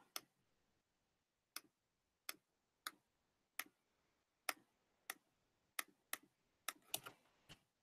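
Computer mouse clicking: about a dozen faint, sharp clicks, spaced irregularly about half a second to a second apart.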